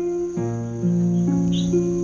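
Background music: gentle plucked-string and keyboard notes, about two a second, over a steady high tone.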